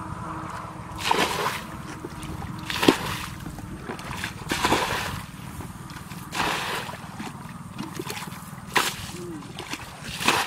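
Water being bailed out of a muddy ditch with a plastic bucket: each scoop is thrown out in a splash, about every two seconds, six times.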